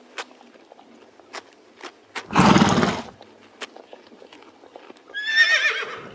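Animal calls: a loud, deep call lasting under a second about two seconds in, then a high, quavering call near the end, with scattered sharp clicks between them.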